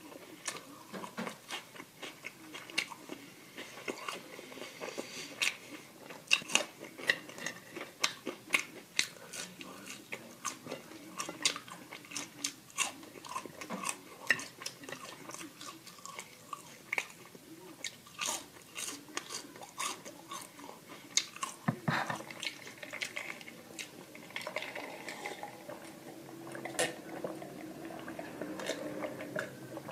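Close-miked chewing and biting of food, with many irregular sharp clicks and crunches from the mouth.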